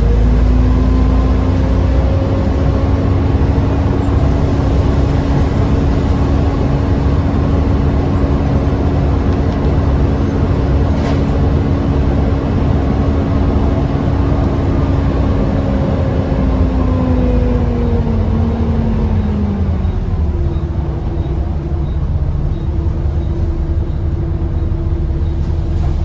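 Single-deck bus's engine and driveline heard from inside the saloon while under way: a low rumble with a steady whine that falls away about two thirds of the way through as the revs drop, then settles on a new, higher note. The uploader thinks it sounds quite tired.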